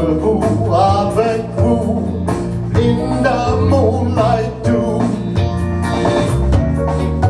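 Live rock band playing a song, a man singing over electric guitar, bass and a drum kit.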